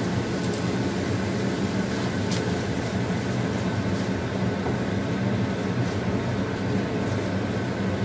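A steady machine hum with a low drone and an even hiss over it, as a spatula stirs thick chilli sauce in a wok.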